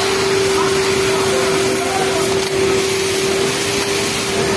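Steady machine din of a garment-factory sewing floor: industrial sewing machines running, with a constant hum at one pitch. Faint voices sit underneath.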